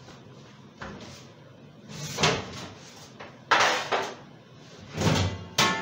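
Kitchen clatter: a string of knocks and door bangs as things are handled at the stove and oven, the loudest about three and a half seconds in.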